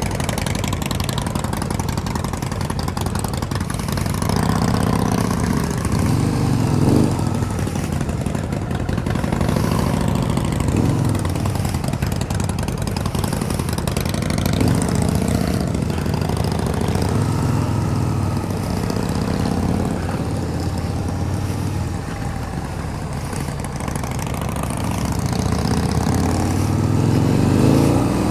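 Harley-Davidson V-Rod's V-twin engine running on the move, its note rising and falling with the throttle several times and climbing under acceleration near the end.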